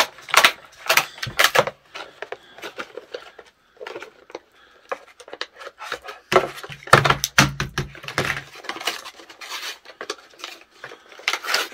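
Kitchen shears handled in their plastic-and-card retail packaging: scattered clicks and clinks of the metal scissors with handling noise from the pack. The busiest stretch comes a little past the middle.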